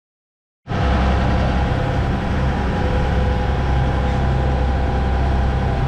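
A moment of silence, then a fishing charter boat's engine running steadily under way: a deep, even drone with a broad rush of noise over it.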